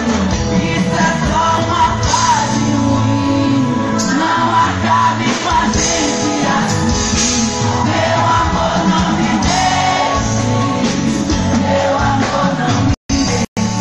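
Loud live stage music with a singer's voice over it, recorded from amid the audience. The sound cuts out twice for a split second near the end.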